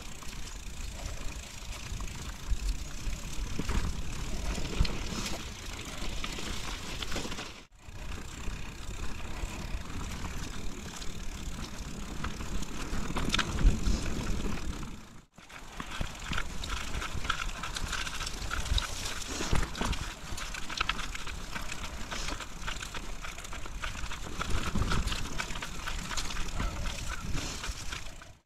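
Mountain bike trail noise: tyres rolling over dry dirt and fallen leaves, with frequent small clicks and rattles from the bike over bumps and a low rumble. The sound drops out abruptly twice, about a quarter and halfway through.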